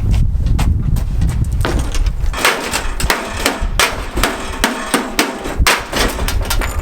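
Repeated heavy blows striking a microwave oven's metal casing, irregularly spaced, over background music with a drum beat.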